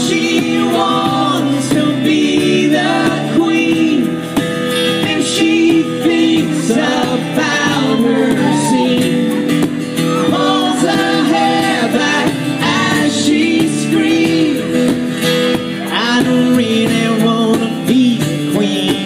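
Live acoustic band music between verses: guitar and a hand drum keeping a steady beat, with some singing over it.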